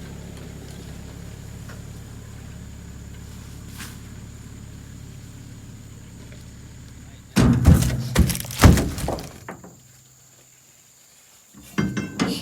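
A steady low engine hum for about seven seconds, then a sudden burst of loud thuds and clatter lasting about two seconds. More thuds start near the end.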